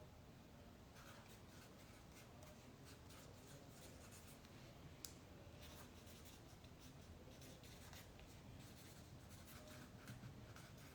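Faint scratching of a pen across a poster as it is being signed, with one sharper click about five seconds in.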